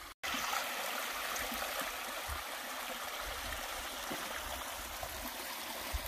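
Shallow creek water trickling over granite rocks into a rock pool, a steady even rush. The creek is running low.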